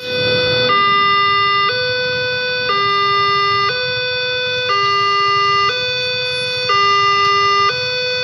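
Indonesian railway level-crossing warning alarm sounding a steady two-tone electronic signal, stepping between a higher and a lower note about once a second: the sign that a train is approaching and the barrier is down. A low rumble of idling traffic lies underneath.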